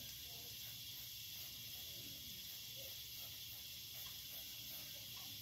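Faint steady hiss of background noise: quiet room tone.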